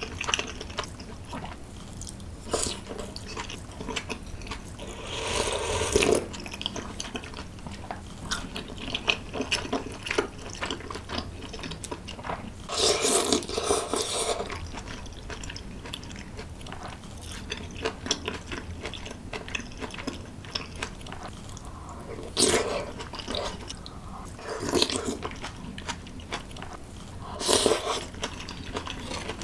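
A person eating close to the microphone: wet chewing, biting and mouth clicks. About five louder, longer noisy bursts are spread through.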